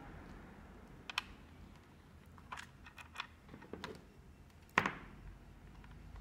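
Scattered light clicks and taps of small wire leads, clips and a plastic voltmeter module being handled and connected, at uneven intervals, with one sharper click about five seconds in.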